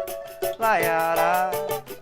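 Samba group playing the opening of a song: a shaker keeps a quick, even rhythm under a melodic line that slides up and down.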